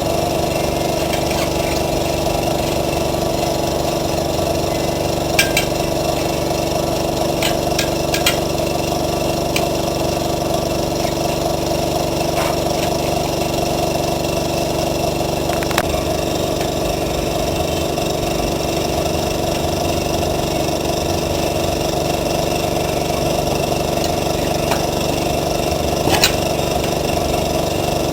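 A small motor or engine running at a steady speed, with a few short clicks and knocks, like tools being handled, now and then.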